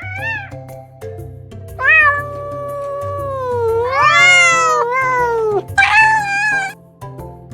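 Domestic cat meowing: one long, drawn-out meow that wavers in pitch, then a shorter, higher meow about six seconds in, over background music.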